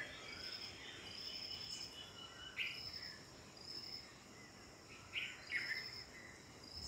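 Faint outdoor ambience: an insect trilling high and steady in short phrases about once a second, with a few short bird calls about a third and three-quarters of the way through.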